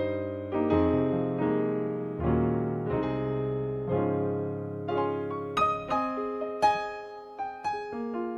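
Sampled Concert Grand piano patch on a Yamaha Montage M keyboard, played as slow rolling chords that change about once a second, then brighter higher notes struck over a held low note from about five seconds in.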